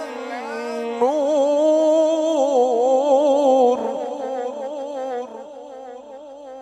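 A man's voice chanting Quranic recitation (tilawat) in a melodic style, drawing out long notes with a quick wavering ornament. A fresh phrase begins about a second in, and the voice softens and trails off over the last couple of seconds.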